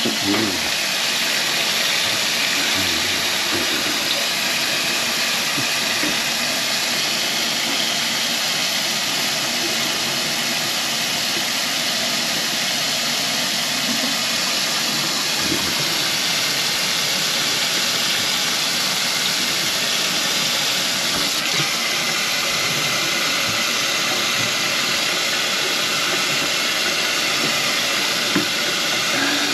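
Kitchen faucet running steadily into a stainless-steel sink while the basin drains, flushing a drain line that was blocked with grease.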